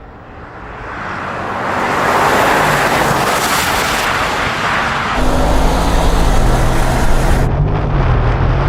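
Cars at speed in a race: a rush of road and wind noise builds over the first two seconds. About five seconds in it changes abruptly to a lower, steady engine drone.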